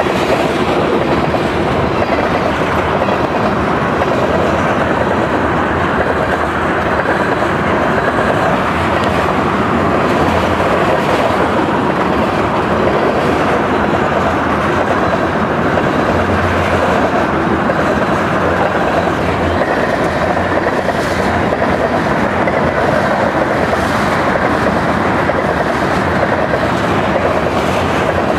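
Tank cars of a long, heavy freight train rolling past fast: a steady loud rumble and rattle of steel wheels, with clickety-clack as the wheels pound over a rail joint. The rail is poorly repaired, its temporary welds failing and the rail flexing over the ties.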